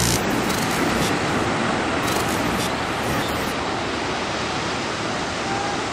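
Surf washing onto a sandy beach: a steady rushing wash of breaking waves.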